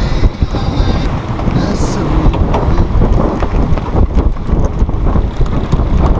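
Wind buffeting the microphone aboard a small sailboat under sail, a dense, irregular rumble. A few light clicks come in during the second half.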